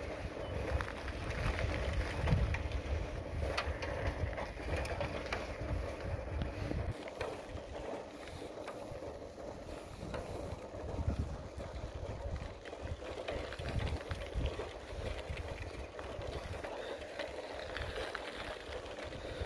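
Bicycle riding along a paved road, picked up by a handheld phone: wind rumbling on the microphone, heavy for the first seven seconds or so and lighter after, over steady tyre and riding noise with occasional small clicks.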